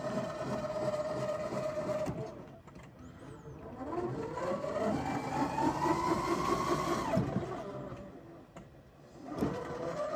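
Brushless electric motor driving a locomotive through a gearbox, whining with speed: a steady whine cuts off about two seconds in, then a whine rises in pitch as the motor speeds up, drops away about seven seconds in, and starts rising again near the end, with a rough rattle from the gearing underneath.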